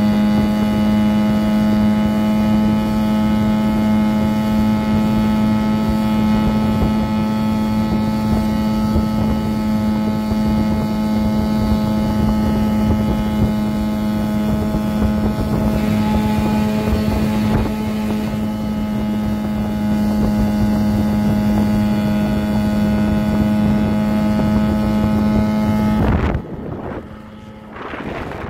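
Small tiller-steered outboard motor running at a steady high speed, a constant engine drone mixed with wind noise on the microphone. About two seconds before the end the engine note drops away and the sound falls to a softer wash.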